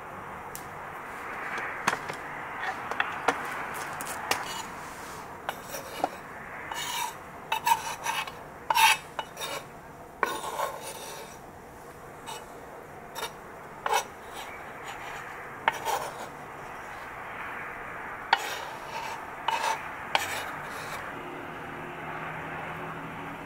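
Kitchen knife chopping and scraping on a wooden cutting board: sharp irregular clicks of the blade on the wood with a rasping scrape as diced meat is pushed off the board into a bowl. Near the end, corn kernels pour from a glass jar into the bowl.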